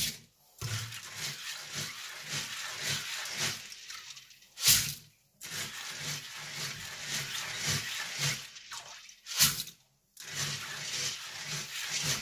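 Soybeans being sifted in a steel bowl of water with a strainer scoop, water swishing and sloshing steadily; this is jori sifting, which separates the beans from any stones. Three times, about five seconds apart, a loud brief splash and rattle as a scoopful of wet beans is tipped into a metal colander.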